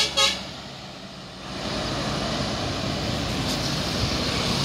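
Highway traffic: an intercity coach passing close by and moving off, then a steady rush of tyres and engines as more traffic approaches.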